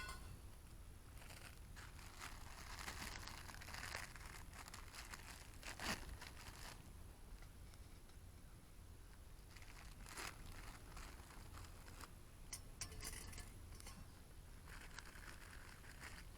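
Faint crinkling and rustling with a few scattered small clicks, coming in short spells: something being handled at close range.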